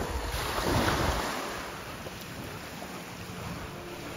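Small sea waves washing onto a pebble shore: a steady surf hiss with wind on the microphone, louder and fuller in the first second or so.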